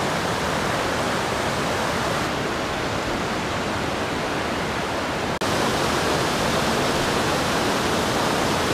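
Rushing mountain stream tumbling over rocks: a loud, steady roar of white water. It steps up slightly about five seconds in.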